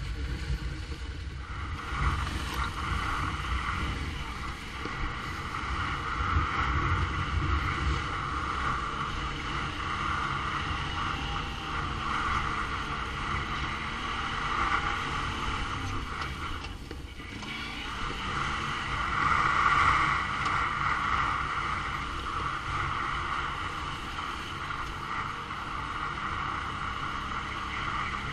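ATV engine running steadily while riding, with tyre rumble and wind buffeting the microphone; the engine note briefly drops about two-thirds of the way through.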